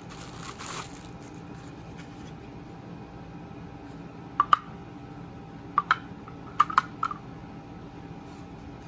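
Packaging rustling briefly at the start, then a handful of sharp plastic clicks and taps in quick pairs as the parts of a cordless handheld vacuum are handled.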